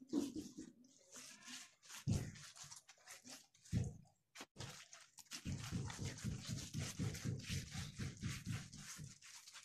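Hands smearing and patting a wet mud wash onto a clay chulha, giving wet slaps and scrapes. A couple of duller thumps come in the first half, and in the second half quick, rhythmic wet strokes come about five or six a second.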